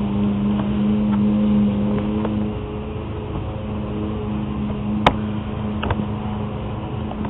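A steady mechanical hum, like a motor running, goes on throughout. About five seconds in there is one sharp click, with a fainter one just after, as a blind rivet is set into the nose of a hand rivet gun.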